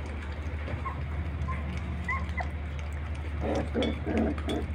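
Puppies making short, high whimpering squeaks, then a few quick lower whines near the end, over a steady low hum.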